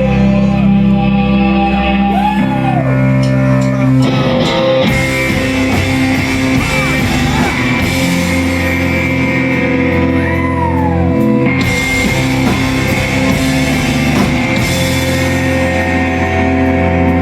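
Emo rock band playing live, with electric guitars, bass, drums and sung vocals, as picked up by an audience recording.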